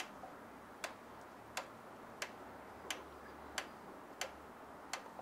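Rebound damping adjuster on a SIP Performance rear shock absorber being turned toward H one detent at a time, setting it to the middle of its range: eight sharp clicks at an even pace, about one every 0.7 seconds.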